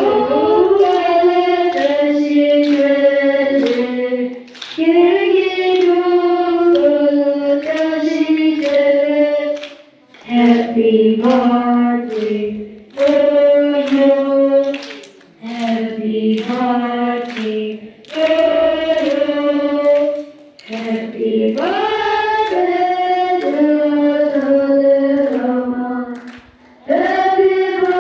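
Voices singing a melody in sung phrases of a few seconds each, with short pauses between them.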